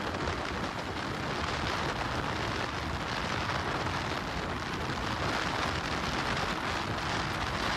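Steady rush of wind over the microphone on a motorcycle being ridden fast.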